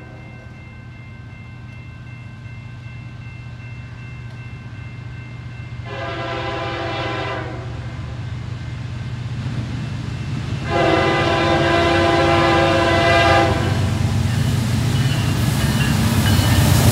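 CN diesel locomotive, an EMD SD70M-2, approaching with its engine hum growing steadily louder, sounding its multi-note air horn twice: a shorter blast about six seconds in and a longer one from about eleven to thirteen and a half seconds. Near the end the engine and wheels on the rails get loud as the locomotive comes alongside.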